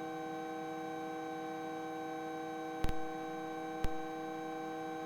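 Bell 206 helicopter running at lift-off power, heard as a steady whine of several fixed tones, muffled as through the cockpit intercom. Two short sharp clicks come about three and four seconds in.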